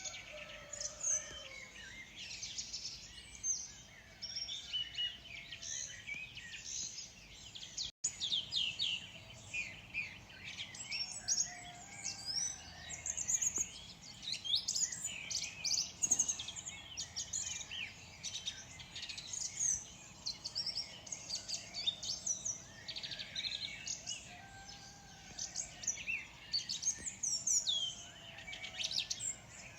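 Morning chorus of many small birds chirping and singing at once, a dense, continuous mix of quick high chirps and trills, with a few fainter lower calls beneath. The sound cuts out for a split second about eight seconds in.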